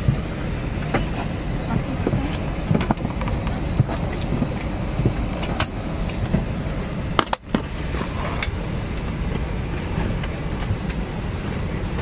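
Steady low rumble of an Airbus A320 cabin at the gate before engine start, with scattered clicks and knocks from the plastic seat-back tray table and seat pocket being handled. The sound briefly drops out about seven seconds in.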